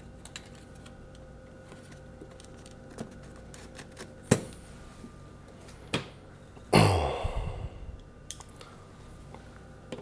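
A few sharp, isolated plastic clicks from handling the LiftMaster wall control panel on its wall mount, and a sigh about seven seconds in.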